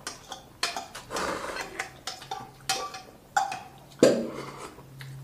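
A person eating curry noodles close to the microphone: chewing and slurping, with a few clicks of cutlery and bowl. About four seconds in come louder sips of curry broth drunk straight from a bowl.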